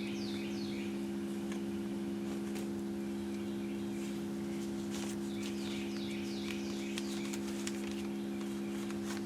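Steady 68 Hz tone from a tone-generator app played through a small Bluetooth speaker, heard as an unbroken low hum made up of several of its overtones. Groups of short falling chirps from an animal sound over it now and then.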